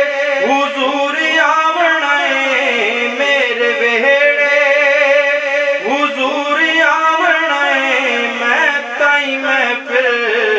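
A man singing a Punjabi naat, drawing the words out in long, wavering, ornamented held notes.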